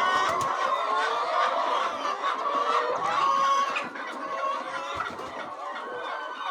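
A flock of chickens clucking, many birds calling over one another at once.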